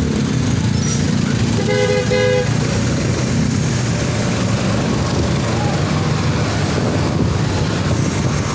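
Road traffic rumbling steadily, with one short vehicle horn toot about two seconds in.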